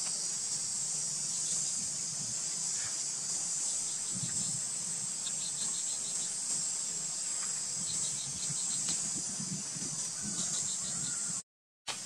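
A steady, high-pitched insect chorus, with short runs of quick chirps every few seconds; it breaks off for a moment near the end.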